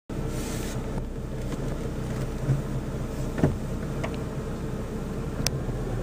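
Car engine and road noise heard from inside the cabin while driving: a steady low hum, with a couple of brief clicks.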